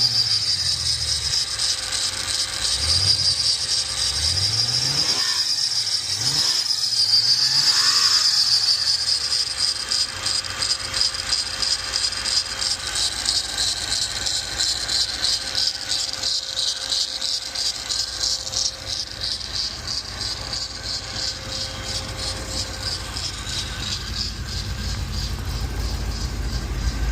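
Rebuilt LS V8 engine running, with a high-pitched squeal from the serpentine belt drive pulsing in a fast, even chirp. It is a squeak from one of the accessory pulleys or the tensioner that pulley swaps have not cured.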